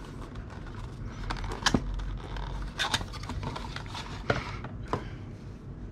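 A cardboard sunglasses box being opened and handled by hand: scraping and rustling with a handful of sharp clicks and taps as the contents are lifted out.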